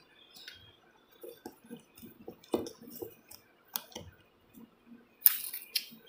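Small plastic clicks and knocks as a battery and its wires are pushed into a bicycle alarm's plastic battery compartment by hand. Near the end comes a short scraping rasp, the loudest sound, and then a second shorter one.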